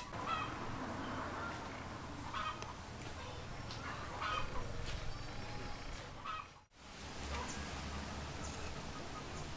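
Chickens clucking now and then: several short calls a second or two apart over a low steady background.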